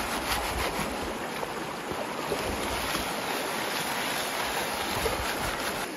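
Water swishing and sloshing in a plastic gold pan dipped in a shallow river, washing gravel out over the rim, over the steady rush of the stream.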